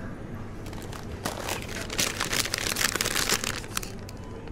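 Crinkling of paper or plastic food packaging being handled, a fast irregular run of crackles starting about a second in.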